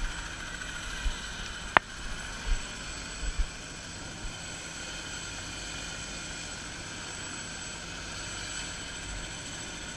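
Steady whine and hiss of helicopters running on the ice, with a few low thumps in the first few seconds and one sharp click just before two seconds in.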